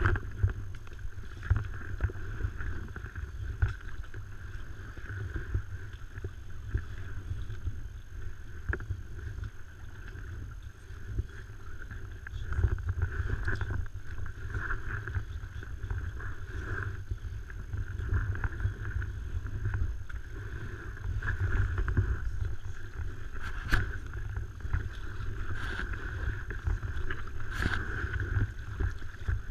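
Paddle strokes in water and water splashing and lapping around an inflatable stand-up paddle board. The splashes swell every couple of seconds over a steady low rumble.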